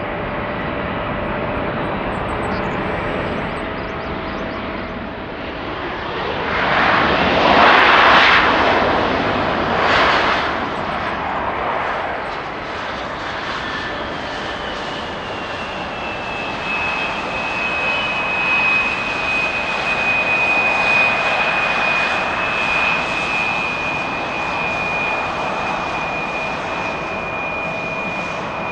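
Embraer E175 regional jet's twin GE CF34 turbofan engines: steady jet noise that swells to a loud rush about seven to nine seconds in, with a shorter surge near ten seconds. It then settles into a steady high whine that slides a little down in pitch and holds.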